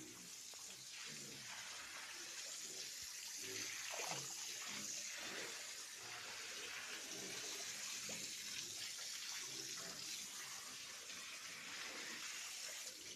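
Water running or spraying in a steady hiss.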